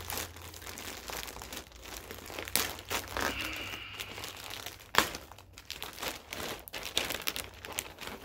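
Clear plastic poly bags crinkling as the shirts inside them are handled, irregular rustles with a sharp crackle about five seconds in.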